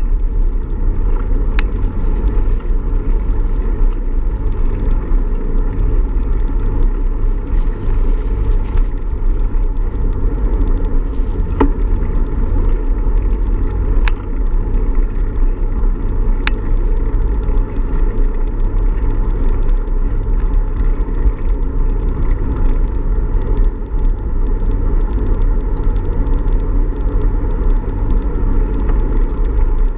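Steady low rumble of wind and road noise on an action camera riding on a moving bicycle, with a few small clicks.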